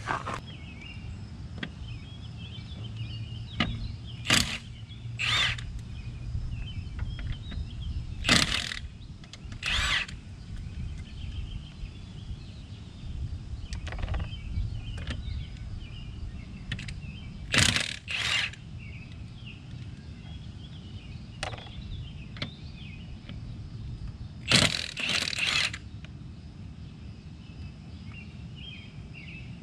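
Scattered knocks and clanks from hand tools at a car's front wheel, about ten of them, a few in quick pairs, over a steady low outdoor hum.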